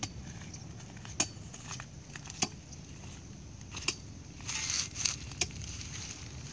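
Footsteps crunching on dry dirt and grass: a few scattered crackling steps and a short noisier shuffle near the middle, over a low wind rumble on the microphone.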